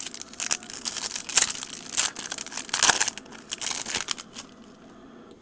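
Foil baseball card pack wrappers crinkling as they are handled, in irregular bursts that die down about four and a half seconds in.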